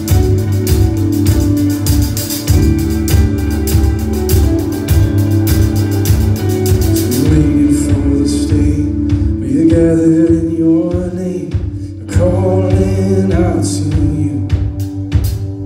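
Live rock trio playing: electric bass, drum kit and electric guitar. The drums and cymbals are busy at first and thin out about seven seconds in.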